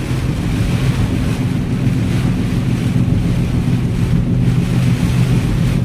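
Steady drone of a car being driven through a typhoon downpour: a constant engine and road hum with rain and wind noise over it.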